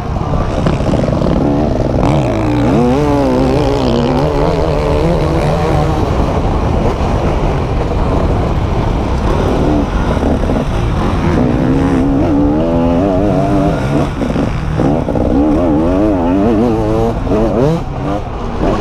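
Motocross bike engine at race pace, close up from the rider's helmet, its revs rising and falling quickly over and over as the throttle is worked through the track. The revving is busiest in the first few seconds and again over the last several seconds.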